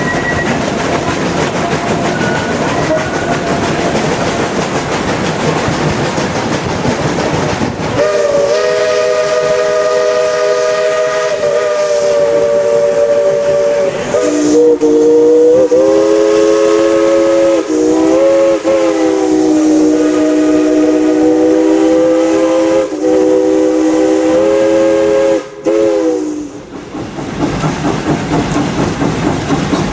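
Steam train running, then from about eight seconds in the locomotive's chime whistle sounds one long blast of several notes together, lasting roughly eighteen seconds, with its pitch dipping and wavering a few times before it cuts off. The train's running noise carries on under and after it.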